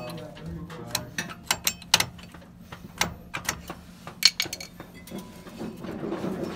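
Parking-brake shoe adjuster being turned with a flathead screwdriver to spread the drum brake shoes, giving a run of sharp metallic clicks, a few a second and uneven. A rougher scraping follows near the end.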